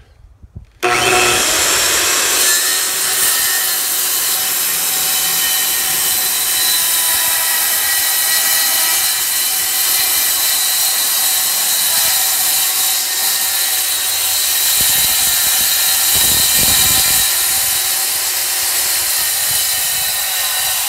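Handheld circular saw starting up about a second in and cutting a long straight taper along clamped wooden boards, running steadily under load.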